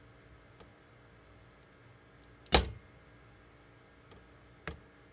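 Freshly cut bars of soap knocking against a wooden soap cutter as they are handled: one sharp knock about halfway through, a softer one near the end, and a few faint ticks.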